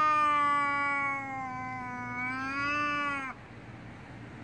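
Street cat's long, drawn-out angry yowl, the caterwaul of a cat squaring off before a fight. It holds one low pitch, swells slightly near the end, then breaks off about three seconds in.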